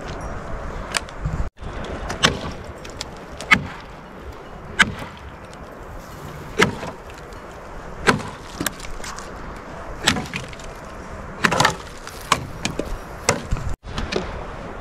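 Dry firewood branches being broken up: irregular sharp cracks and knocks of wood, roughly one a second.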